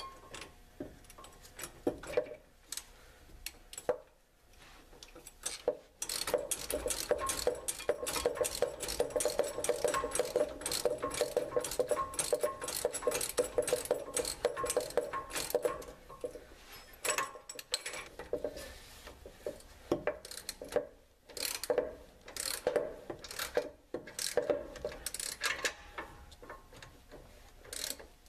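Hand socket ratchet on an extension clicking as nuts are run down: a few scattered clicks at first, then a long run of rapid clicking, then shorter runs of clicks with pauses between them.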